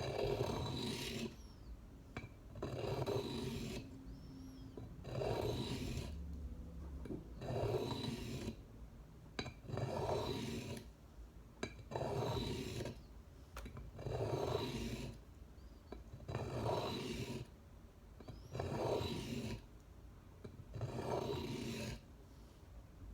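Swiss Army knife blade scraped across a sharpening stone in about ten long, even strokes, one every couple of seconds, while the burr raised on both sides is worked down.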